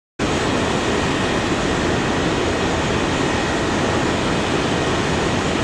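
Steady rushing roar of water pouring over a spillway dam, cutting in suddenly just after the start.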